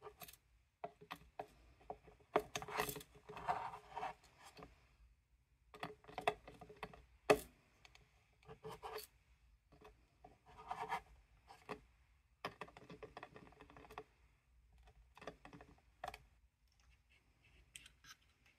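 Pliers and a thin metal chain clicking and scraping against a wooden box as the chain is fastened to the lid, in irregular bursts of small clicks and scratches with short pauses between.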